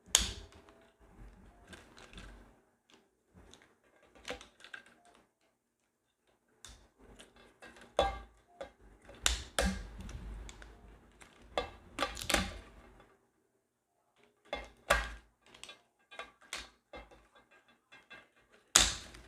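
Irregular clicks and knocks of plastic parts being handled and pried apart while dismantling a Tesla Model 3 steering column assembly, with a sharp click right at the start and another near the end and brief pauses between bursts of handling.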